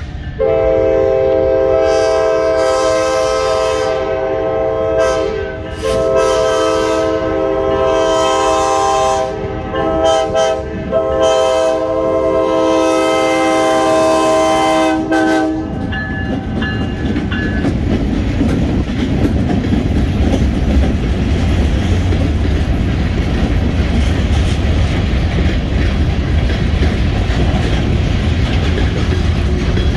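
Multi-note air horn of an MP15N switcher locomotive sounding a chord in several blasts over about fifteen seconds, the last held longest. Then the rumble of the diesel switchers and the clatter of freight-car wheels on the rails as the train rolls past.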